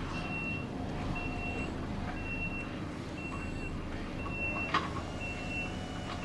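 Kubota SVL compact track loader backing up: its reversing alarm beeps about once a second, each beep a steady high tone about half a second long, over the low sound of the machine's engine running. A single sharp knock about five seconds in.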